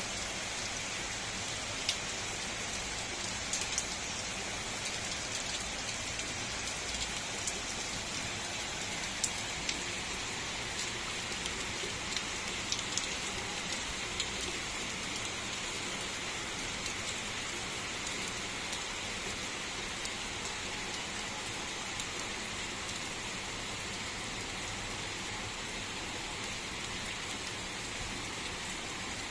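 Steady rain falling, an even hiss with individual drops ticking and scattered louder drips through it.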